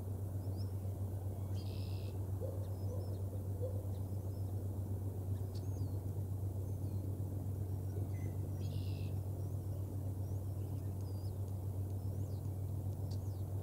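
Steady low hum throughout, with faint scattered chirps of small songbirds and two short buzzy notes, about two and nine seconds in.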